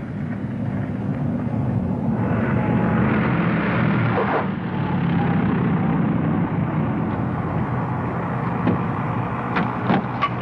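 Lockheed P-38 Lightning's twin Allison V-12 engines running throttled back during the landing rollout, a steady low rumble. A rush of noise swells about two seconds in and eases after about four and a half. A few sharp clicks come near the end.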